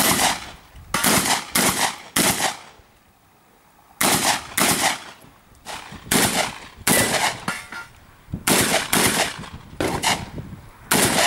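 Shotgun fired in rapid strings: more than a dozen sharp, loud shots, each with a short echo. Four shots come close together, then a pause of about a second and a half before the firing resumes.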